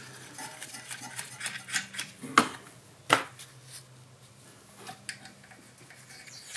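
Light metallic clicks and taps as nuts are fitted by hand onto the pivot bolts of a golf cart starter generator, with two sharper clicks between two and three seconds in.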